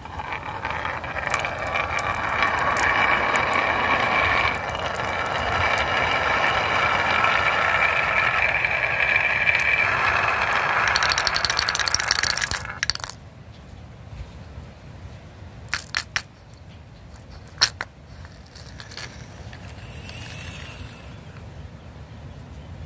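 A string of marbles rolling down the groove of a wooden wavy marble slope, a continuous rolling rumble with a faint ringing, which ends about 13 seconds in with a run of clicks as the marbles clack into a wooden bowl. After that, only a few scattered clicks, one sharp click about 18 seconds in.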